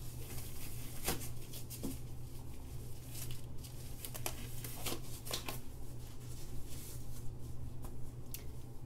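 Blue nitrile gloves being pulled onto the hands: rustling with a series of sharp snaps, over a steady low hum.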